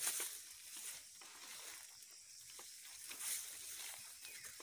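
Fern fronds and leaves rustling and brushing as someone pushes slowly through dense undergrowth, with a few louder swishes, the strongest at the very start and about three seconds in.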